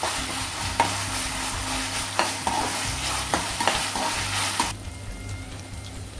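Shallots and ginger-garlic paste sizzling in hot oil in a kadai, stirred with a metal slotted spatula that clicks and scrapes against the pan several times. This is the sauté stage where the raw smell of the ginger-garlic paste is cooked off. The sizzle drops off abruptly about three-quarters of the way through.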